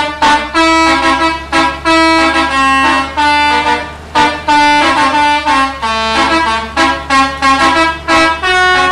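Bus 'telolet' horn: a set of tuned air horns playing a quick melody of short and held notes, phrase after phrase with brief breaks between them.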